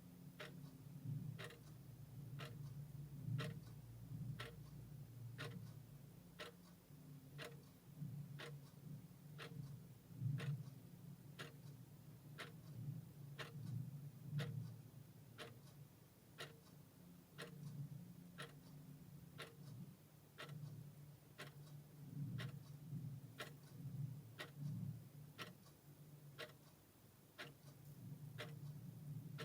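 A mechanical clock ticking steadily, about one tick a second, over a low, uneven hum.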